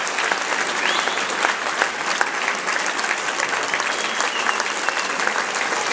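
Crowd applauding steadily in a hall.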